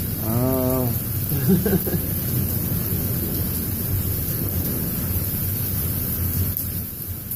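Strong storm wind blowing across the microphone, a steady low rumbling rush. A short wavering pitched call sounds briefly near the start.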